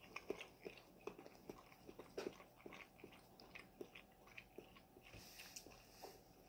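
Faint chewing of a mouthful of chickpea curry and rice: small mouth clicks at about two to three a second.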